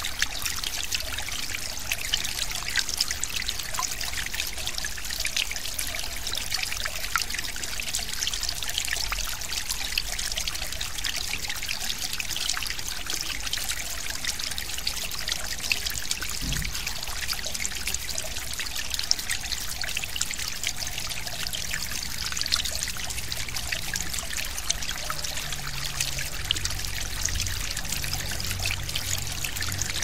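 Forest stream flowing: a steady, even babble of water made of countless small trickles and splashes.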